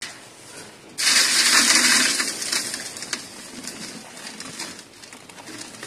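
Dry red dirt poured from a wooden scoop onto a metal mesh sieve in a plastic bucket. A sudden loud pouring hiss starts about a second in, then tapers into crackling trickles of grains.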